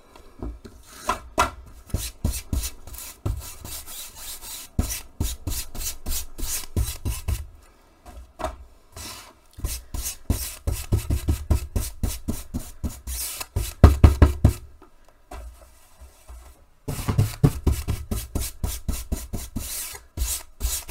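A large flat bristle paintbrush scrubbing paint into wet fabric in quick back-and-forth strokes, a rapid scratchy rubbing. It pauses briefly about eight seconds in and again for a second or two around sixteen seconds in.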